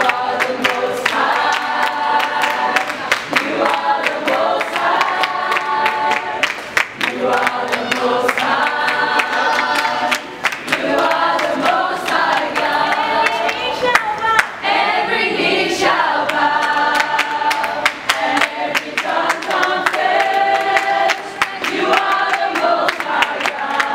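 Gospel choir singing a cappella, with mixed voices in sung phrases and short breaks, and a steady beat of hand-claps in time throughout, heard in a tiled underground station.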